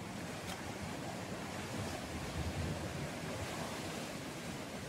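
Steady wash of sea waves with wind on the microphone, swelling a little about halfway through.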